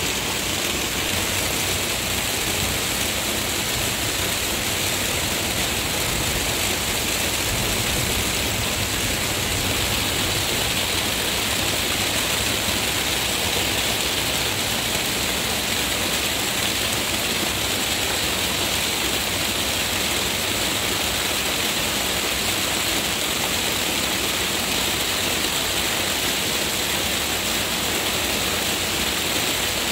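Heavy rain pouring down onto leaves and wet ground: a steady, dense hiss with no break.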